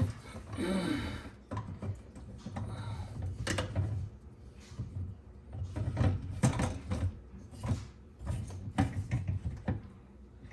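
Dishwasher parts being handled and fitted back into place during reassembly: a short scrape early on, then irregular clicks and knocks of parts being set and pushed in.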